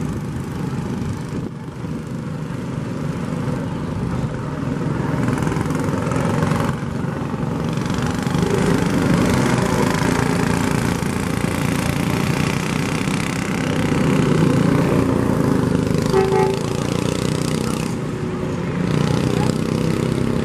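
A Chevrolet Silverado pickup and then a Chevrolet Camaro driving slowly past in a parade, engines running, with a steady rumble of road and engine noise.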